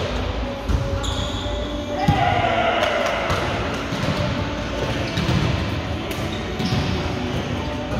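Indoor volleyball rally in a large, echoing gym: a few sharp smacks of hands and arms on the ball, with players' voices calling out over the hall's chatter.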